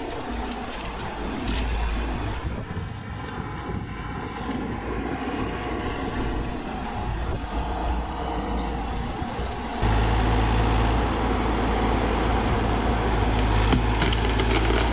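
Bobcat E42 mini excavator's diesel engine running under load as it works, a steady low drone that steps up and gets louder about ten seconds in.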